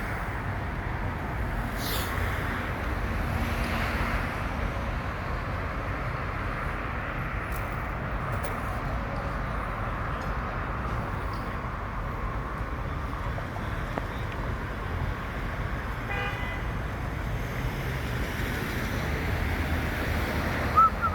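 Steady city street traffic noise of passing cars and engines, with a brief high-pitched tone about three-quarters of the way through.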